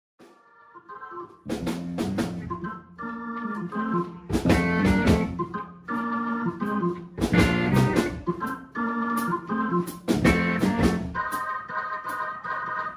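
Instrumental soul music led by an organ playing held chords over bass and drums. It starts faintly and the full band comes in about a second and a half in.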